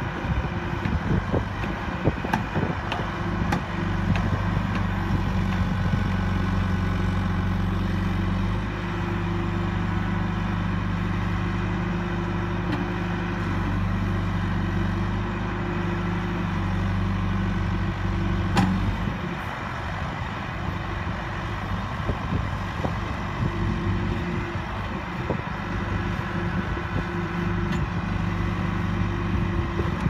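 Diesel engine of a 2002 John Deere 410G backhoe loader running while the backhoe boom and bucket are worked. Its note gets heavier about four seconds in, there is a single sharp clank about two-thirds of the way through, and then the engine eases to a lighter note.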